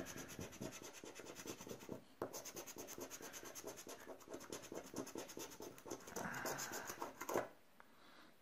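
Scratch-off lottery ticket being scraped with a flat scraper: rapid, faint back-and-forth scratching strokes rub off the coating over the prize fields, stopping about seven seconds in.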